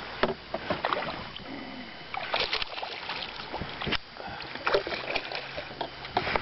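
Water sloshing and splashing around a small fishing boat, with scattered irregular knocks and clicks.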